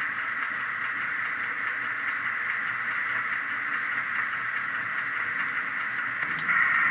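Sound decoder of a Bachmann GWR 94XX pannier tank model playing its steam locomotive coasting sound through the model's speaker: a steady hiss with faint, regular light ticks about two and a half a second. The hiss grows louder near the end.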